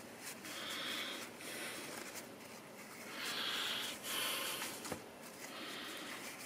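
Faint, intermittent swishing hiss, in strokes about a second long, as a freshly stripped die-cast metal car body is dried off, with a small click about five seconds in.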